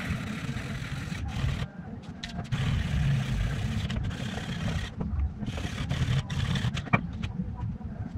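400-grit sandpaper on a hand-held guided sharpener rasping back and forth along a rust-covered steel knife blade in repeated scraping strokes, grinding the rust off and raising a new edge. The strokes pause briefly a couple of times, and a sharp tap comes about seven seconds in as the scraping stops.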